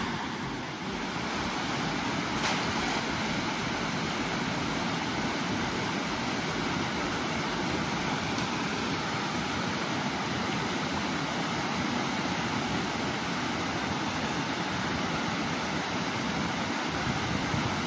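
Steady rushing of river water tumbling over rocks and small rapids.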